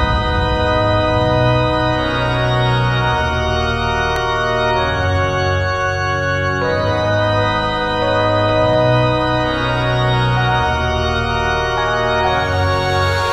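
Background music: sustained chords, held and changing every few seconds.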